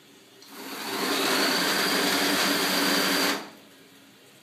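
Electric motor of an automatic hygienic toilet seat cover running for about three seconds, turning a fresh plastic film around the seat to clean it, then stopping suddenly.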